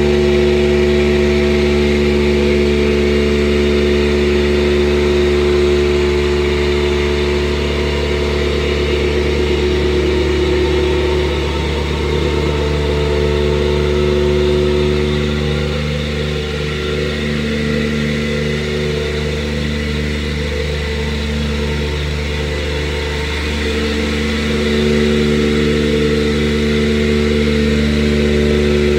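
Excavator's diesel engine running steadily close by, its note shifting a little and easing off slightly in the middle before picking back up near the end.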